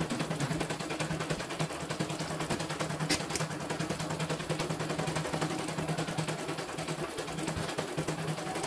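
CNY E900 portable computerised embroidery machine stitching: the needle runs in a fast, even rattle over a steady motor hum, with a sharper click about three seconds in.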